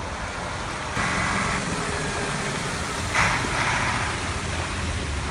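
Heavy vessel engines running under a steady rushing noise as the ships push across sea ice; the noise steps louder about a second in and again around three seconds in.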